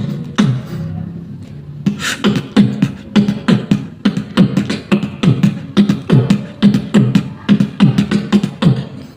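Human beatboxing: a few sharp mouth hits and a held low hum, then from about two seconds in a steady rhythmic run of deep, falling kick-like hits, about three a second.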